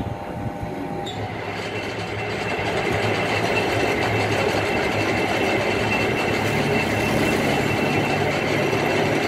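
Metal-turning lathe starting up about a second in and coming up to speed, then running steadily as its chuck spins a threaded rod, a thin high whine over the machine's drone.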